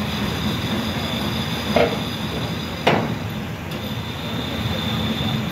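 Steady machinery rumble and hum aboard a docked car ferry, with a thin high whine over it. Two sharp metal clanks come about two and three seconds in.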